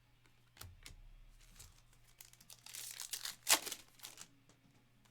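A trading card pack's foil wrapper being crinkled and torn open: a few light clicks, then a tearing rustle with one sharp rip about three and a half seconds in.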